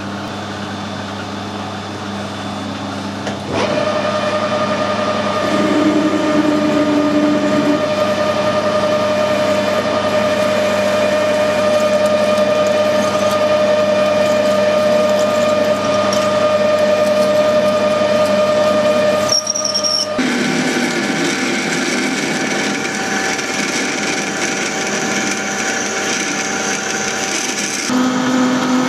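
Metal lathe running with a steady whine from its gearing while a drill in the tailstock cuts into the end of a bar spinning in the chuck. The sound gets louder about a third of the way through, breaks off briefly and changes pitch about two-thirds through, and shifts again near the end, when a large 29 mm drill is cutting and peeling off curls of swarf.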